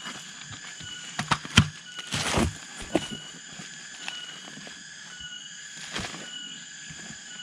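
Digging in earth with a shovel: a few sharp knocks and a short scrape of soil about two seconds in.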